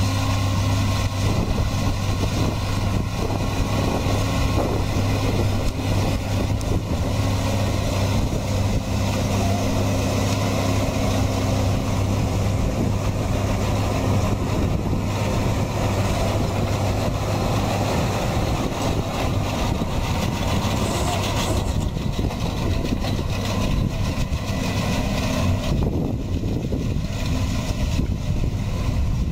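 Deutz-Fahr Agrotron M650 tractor engine running steadily as it pulls a Pöttinger Europrofi Combiline 5510 loader wagon along a grass swath, its pickup gathering the grass. A low, even hum with a haze of noise above it; part of the hum drops away near the end.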